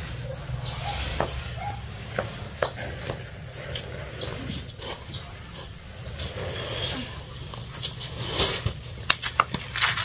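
Dry unhulled rice grains rustling and ticking as they are spread by hand over sacks laid on the ground for sun-drying. The clicks grow denser and louder near the end as someone steps onto the rice.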